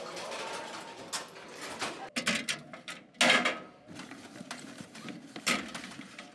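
A series of sharp knocks and bangs on metal school lockers, the loudest about three seconds in, over a low murmur of voices.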